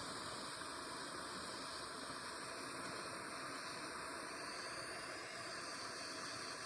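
Gas torch flame hissing steadily while heating argentium silver for keum boo, bonding gold foil to the metal.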